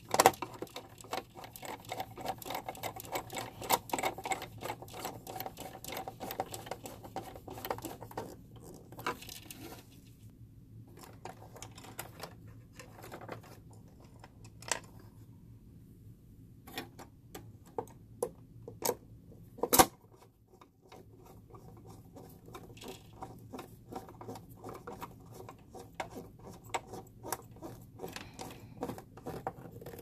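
Screwdriver turning screws into a steam humidifier's water valve assembly: long runs of rapid small clicks, sparser in the middle, with a sharp knock near the start and another about twenty seconds in.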